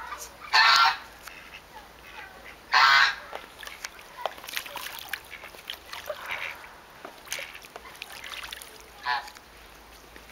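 Domestic goose honking: two loud honks in the first three seconds and a fainter one near the end, with scattered quieter clicks between them.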